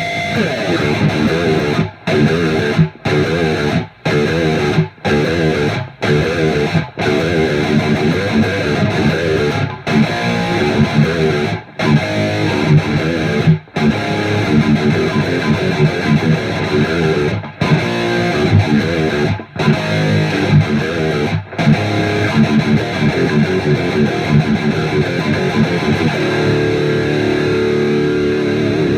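Distorted electric guitar playing simple metal riffs through a Randall RG100ES solid-state amp, driven by a Furman PQ4 preamp and an MXR six-band EQ set pretty grindy. Between phrases the sound cuts off dead where the noise gate shuts, and a note is held for the last few seconds.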